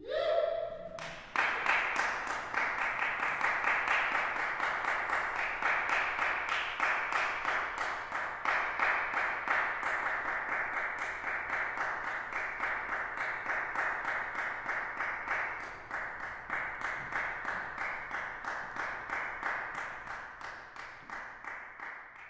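Audience applauding steadily, slowly dying away toward the end.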